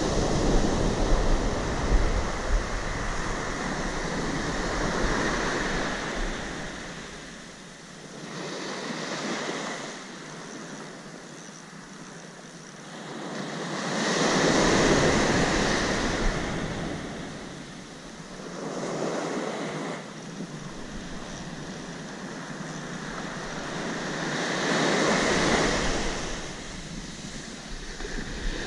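Surf breaking and washing up the beach, the noise swelling and fading with each wave every few seconds and loudest about halfway through. Wind rumbles on the microphone, mostly in the first few seconds.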